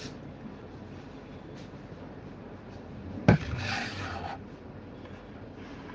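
Handling noise: a sharp knock about three seconds in, then about a second of rubbing and rustling, over a steady low room background.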